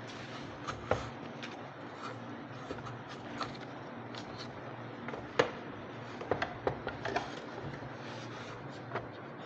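Scattered light clicks and taps of parts and tools being handled during a vacuum cleaner repair, with a cluster of them about six to seven seconds in, over a steady low hum.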